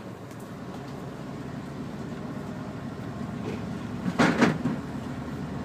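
Neoplan N116 Cityliner coach's Mercedes V8 diesel engine running on the move, heard inside the coach, slowly growing louder. A brief, louder rushing noise comes about four seconds in.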